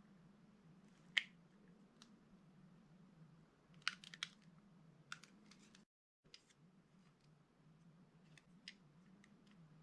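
A knife cutting through a bar of soft soap, giving a few sharp, crisp crunches: one about a second in, a quick cluster around four seconds and fainter ones near the end. A faint steady low hum sits underneath, and the sound cuts out completely for a moment around six seconds.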